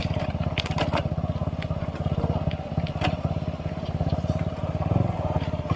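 Single-cylinder motorcycle engine running steadily at low revs with an even beat, and a few sharp clicks over it.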